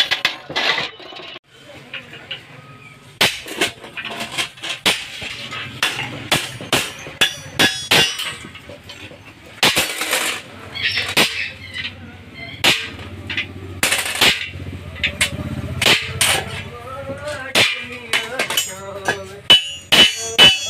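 Irregular hammer blows and metal clinks on sheet steel, some with a brief ringing, with voices in the background.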